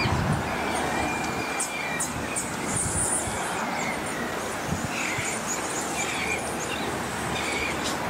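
Birds calling with short chirps and whistles over a steady rushing background. One whistle is held for about a second and a half near the start, and the chirps come every second or so in the second half.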